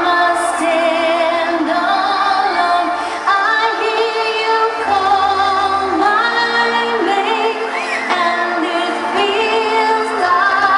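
Music: a woman singing long, wavering held notes over a steady accompaniment.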